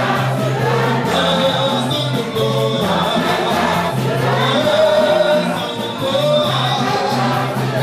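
Gospel worship music: a choir singing with instrumental accompaniment, held notes over a steady bass line.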